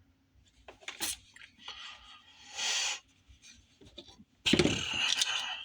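Handling noises: a sharp click about a second in, short rubbing and scraping sounds, and a louder stretch of rubbing near the end.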